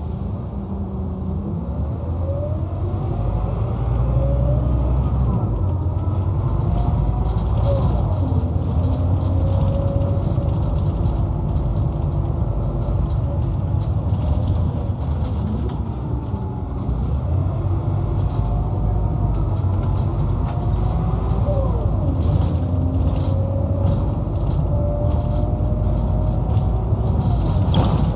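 Scania K230UB bus's 9-litre DC09 engine and ZF Ecomat 5-speed automatic gearbox, heard from inside the saloon while under way. Beneath a steady low rumble, the gearbox whine climbs in pitch through each gear and drops back at each upshift, several times over.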